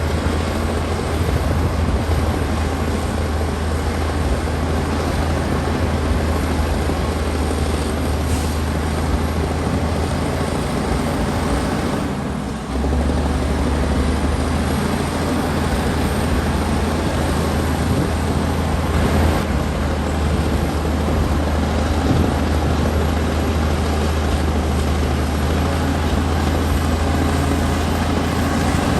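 Komatsu D60P bulldozer's diesel engine running steadily as the dozer works, a deep continuous drone with a brief dip and change in its low note about twelve seconds in.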